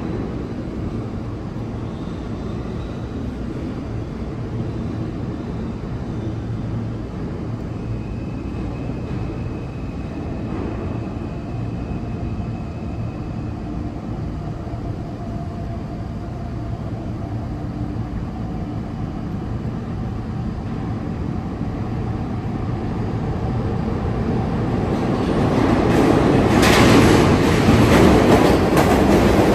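New York City subway trains in an underground station: a steady low rumble that swells near the end as a train comes in close, loudest in the last few seconds, with wheels clattering over the rail joints.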